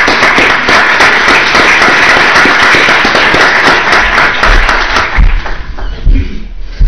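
Audience applauding, dying away about five seconds in, followed by a few low thumps.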